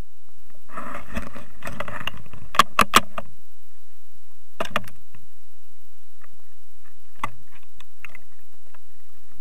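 Water splashing and lapping at the surface as a spearfisher swims, heard from right at the waterline, with three quick sharp knocks about two and a half seconds in and a few single knocks later.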